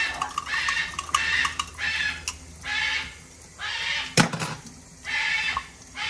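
Thermometer probe needle stirring thick feeding formula in a ceramic mug: short scraping strokes about once a second, with one sharp knock about four seconds in.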